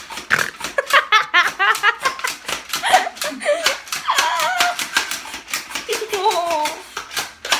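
A girl laughing hard in quick, repeated bursts, with high-pitched giggles and squeals.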